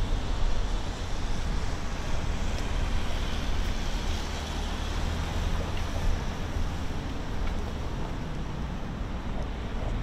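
Steady low rumble of road traffic with wind buffeting the microphone.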